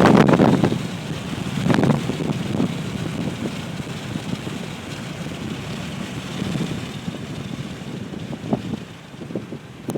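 Road and wind noise inside a moving car's cabin, a steady rush. It swells louder in the first second and again about two seconds in.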